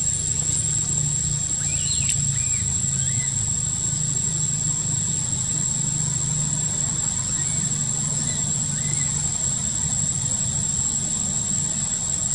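Steady outdoor ambience: a constant low engine-like rumble with a thin, high steady whine over it. A few faint short chirping calls come a couple of seconds in and again later.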